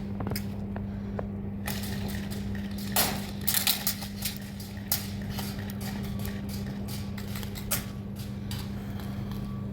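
Scattered airsoft gunshots, heard as sharp cracks with a short cluster about a third of the way in, over a steady low hum.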